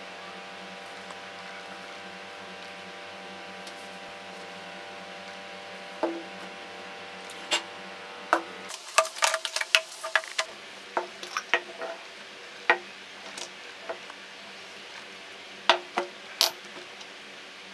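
A steady electrical hum. From about six seconds in it is broken by a run of light knocks and clinks as small objects (cups, a glass jar, a metal lid, chopsticks) are picked up and set down on a wooden cutting board and tabletop.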